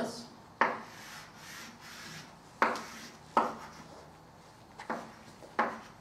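Chalk being drawn across a chalkboard: about five separate strokes, each starting sharply and scraping off within a fraction of a second, as lines of a square are drawn.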